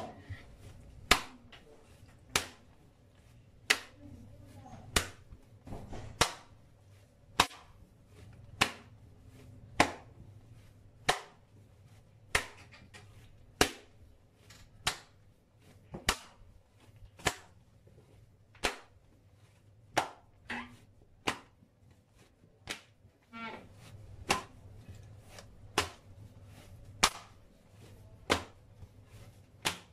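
A thin sheet of Kerala parotta dough slapped down onto a granite countertop again and again, one sharp slap about every second and a quarter: the beating-and-pulling stage that stretches the dough thin.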